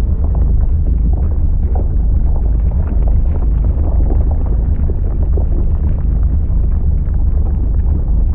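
A loud, continuous low rumble with crackling through it, an explosion-like roar used as a sound effect.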